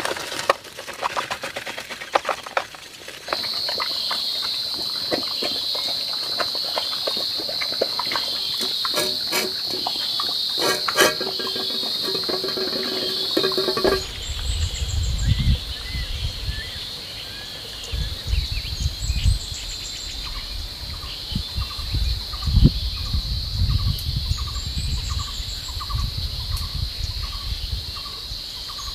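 Steady high-pitched drone of insects, likely cicadas, with dense small clicks in the first half like geese pecking at corn. After a cut about halfway, there are low splashing bursts as ducks dabble in a pond, and a faint call repeating about twice a second near the end.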